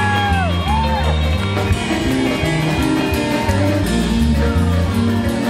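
Live rock and roll band playing an instrumental stretch, with electric guitar over a stepping bass line and drums. A few high whoops from the audience come in the first second.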